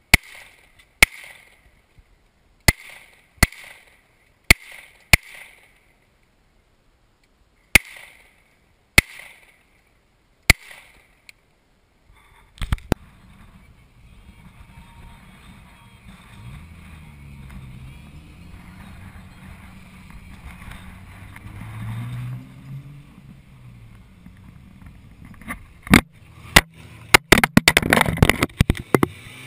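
Handgun fired about nine times at uneven intervals over the first eleven seconds, each sharp crack followed by a short echo. Then a vehicle engine runs with a low, shifting rumble, and near the end comes a rapid burst of loud cracks.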